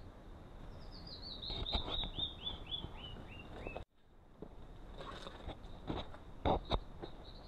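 A canyon wren sings its cascade, a run of about a dozen short whistled notes that step steadily down in pitch and slow slightly toward the end. After a brief break, a few scuffs and knocks follow, two of them louder near the end, over a faint steady high whine.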